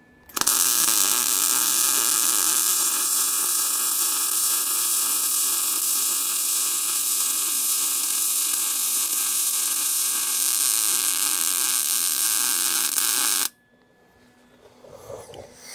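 MIG welding arc laying a continuous bead on the tubular front bash bar, a steady, loud crackling hiss. It strikes about half a second in and runs unbroken for about 13 seconds before cutting off sharply when the trigger is released.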